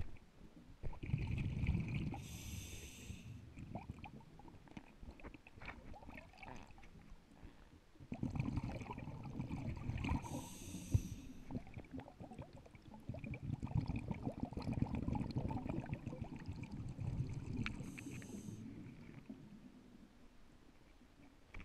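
Scuba diver breathing through a regulator underwater: about three breaths, each a long rush of exhaled bubbles with a brief high hiss.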